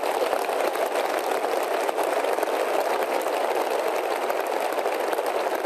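Steady, dense applause from a large audience in a big conference hall.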